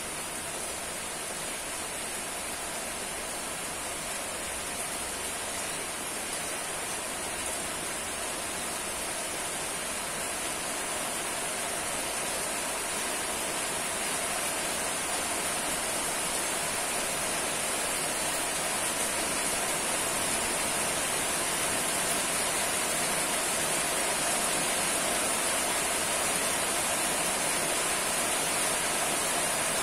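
Steady rain falling, an even hiss of water that grows slightly louder through the stretch.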